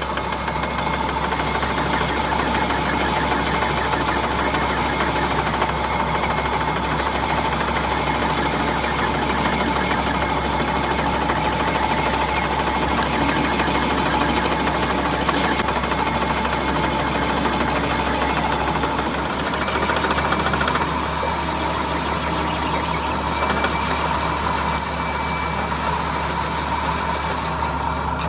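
Metal lathe running and turning a metal workpiece, the cutting tool shaving it: a steady machine hum and cutting noise with a constant whine.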